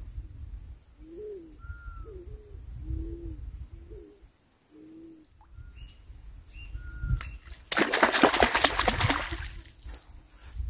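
A dove cooing: a string of short low coos over the first five seconds, with another bird chirping higher up now and then. Near the end, a loud burst of rapid rattling noise lasting about two seconds.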